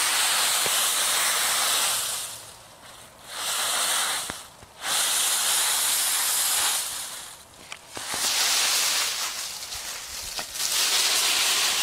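Dry autumn leaves rustling and crunching as a small dog bounds and burrows through a leaf pile. The noise comes in repeated stretches of a second or two, with short lulls between them.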